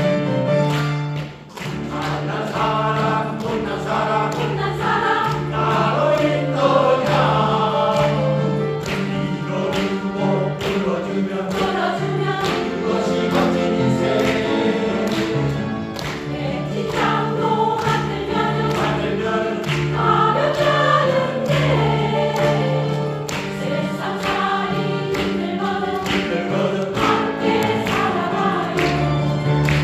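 Choir singing a song, with a brief break about a second and a half in before the voices come back in.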